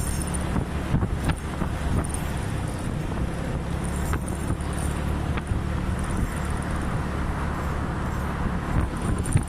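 Scooter engine running steadily while riding at speed, with road and wind noise.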